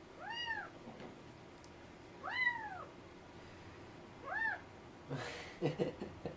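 A one-month-old kitten meowing three times, about two seconds apart, each thin call rising then falling in pitch, with a brief rustle near the end.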